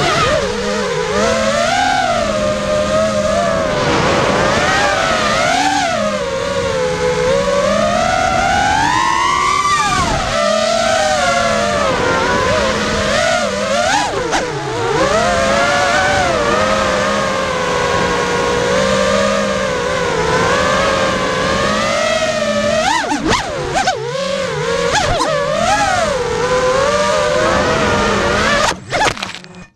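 Five-inch FPV racing quadcopter's brushless motors (Lumenier 2206 2300KV on 4S with tri-blade props) whining as heard from the onboard camera, the pitch rising and falling constantly with throttle through flips and turns, over a rush of prop wash. Near the end there are a few knocks and the motor sound stutters and cuts off as the quad crashes.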